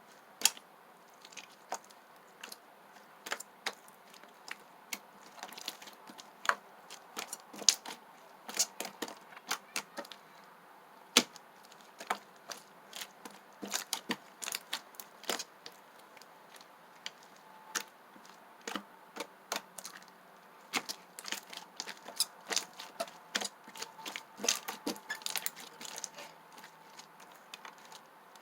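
Slime being squeezed and poked by hand, making irregular sharp clicks and small pops, several a second at times.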